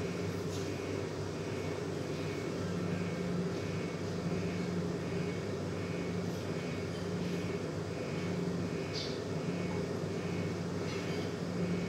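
A steady machine drone with a low hum, and a faint high tone pulsing about twice a second.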